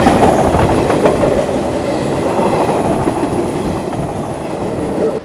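Commuter passenger train passing close by: a loud, steady rumble of wheels on the rails with faint clicking over the rail joints. It cuts off suddenly at the end.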